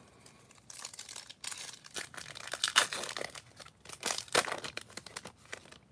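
A foil Topps Chrome trading card pack being torn open by hand: a run of crinkling and tearing with irregular crackles, the loudest rips near the middle and about two thirds of the way through.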